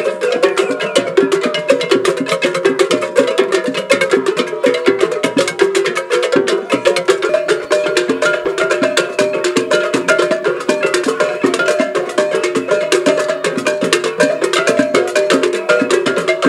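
Many hand-held wooden clappers struck by a group of players in a dense, rapid, continuous rhythm: a steady clatter of wooden knocks.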